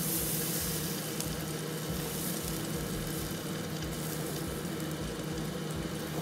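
Marinated flanken-cut short ribs sizzling on the hot plate of a Philips smokeless indoor grill as they are lifted off with tongs: a steady hiss with a low steady hum underneath.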